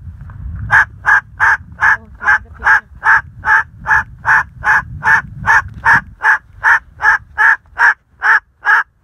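White cockatoo barking like a dog in a long, evenly paced run of short, loud barks, about two and a half a second, starting just under a second in.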